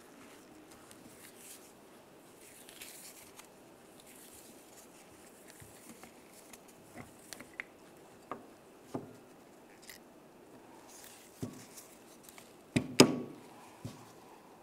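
Faint, scattered metal clicks and taps as a hex key works the threaded plug out of a truck oil pump's pressure relief valve, with a louder clack of metal parts set down about thirteen seconds in.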